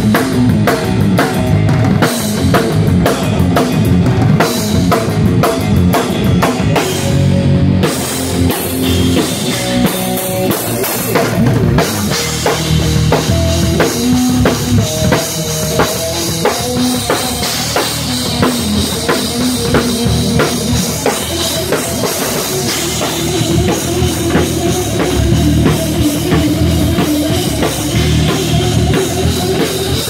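Metal band playing an instrumental riff live: drum kit with bass drum and cymbals under electric guitar, heard loud from on stage beside the drums. The sound fills out about twelve seconds in.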